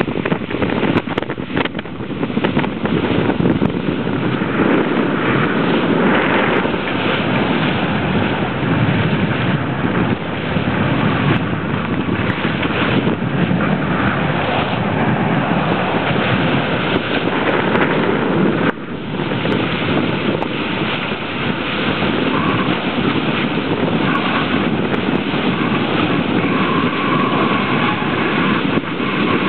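Wind buffeting the microphone on the deck of a sailing catamaran under way, over the rush of water along the hulls.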